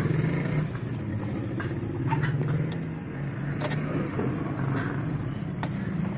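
A steady low engine-like hum, with a few sharp metallic clicks of a nut and steering tie-rod end being handled.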